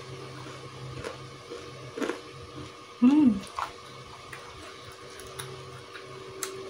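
Quiet eating sounds: a few soft clicks of chewing and cutlery, with a brief hum of the voice about three seconds in. A steady electrical hum runs underneath.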